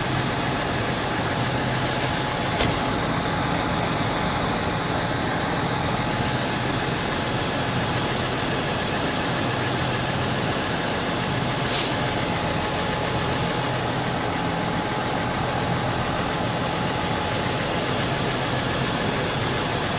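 Diesel engines of large farm tractors running steadily at an even speed, the nearest a Claas. A brief sharp knock about twelve seconds in.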